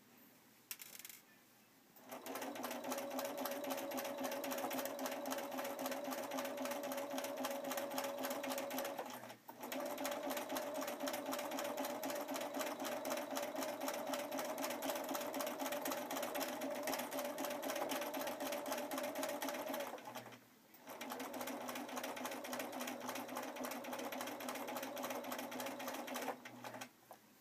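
Bernina sewing machine free-motion stitching lace onto fabric at speed: a steady motor whine under rapid needle clatter. It starts about two seconds in, stops briefly twice, and stops near the end.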